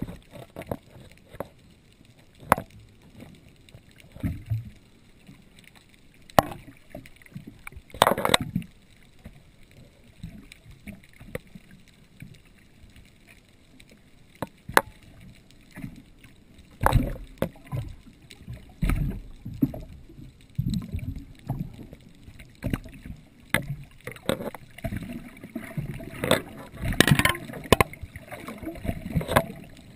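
Muffled underwater water noise around a submerged camera: frequent small clicks and knocks, with several louder rushes of moving water, the strongest near the end.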